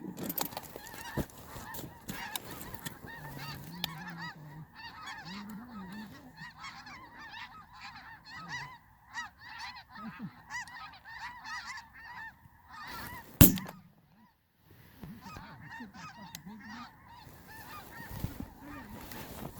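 A flock of snow geese calling over and over, many high, yelping honks overlapping. About two-thirds through, a single sharp loud bang, followed by a moment of near silence.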